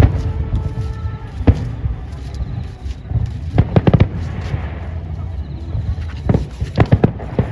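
Small consumer fireworks popping: sharp bangs a second or two apart, with a quick cluster of pops around the middle. A steady low rumble runs underneath.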